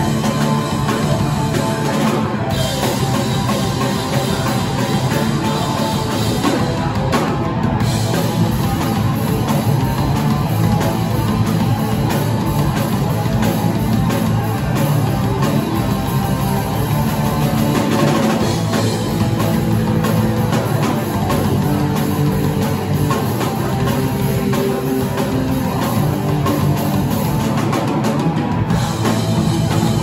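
Live rock band playing loudly and without a break: electric guitars through amplifiers over a full drum kit.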